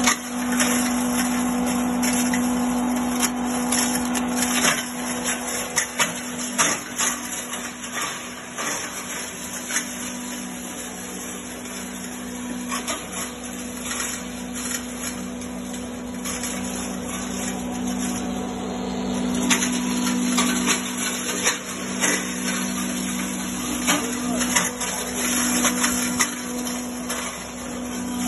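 Belt-driven herb grinding machine running with a steady hum, with irregular clicks and rattles as dried leaves are fed into it.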